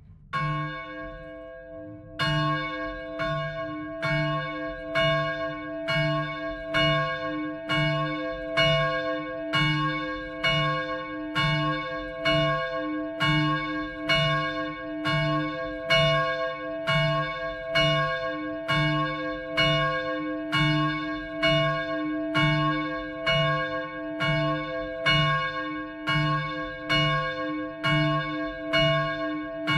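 A swinging church bell ringing on its own: the 195 kg bronze middle bell, cast in 1922 by the Fischer Brothers of Trnava and tuned to about c². The clapper first strikes just after the start and again about two seconds in, then keeps striking at a steady, even pace, each stroke ringing on into the next.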